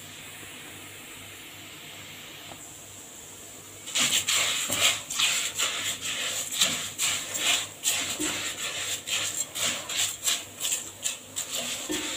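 Washed rice frying in hot oil in a pot, browning before the water goes in: a faint steady sizzle, then about four seconds in a spatula starts stirring it, with quick scraping, rustling strokes of the grains against the pot, about two to three a second.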